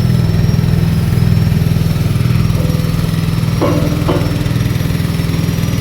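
MAR-C A200 coconut-milk press running steadily on its small engine, working a batch of grated coconut that has turned hot from repeated passes.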